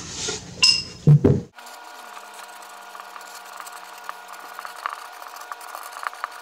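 A couple of sharp knocks about a second in, then a Sharpie felt-tip marker scratching across plywood in short strokes as words are written, over a steady faint hum.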